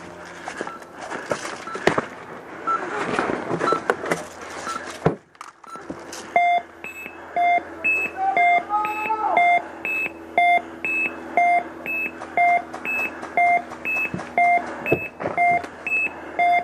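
Electronic beeper beeping steadily about twice a second. In the first few seconds the beeps are higher-pitched under rustling and knocks of movement; after a brief break they turn to lower, buzzier beeps, with a short rising-then-falling glide about halfway through.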